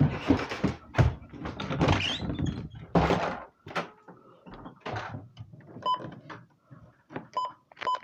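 Handling knocks and clicks as the buttons of a small weather alert radio are pressed, with short, high electronic beeps near the end.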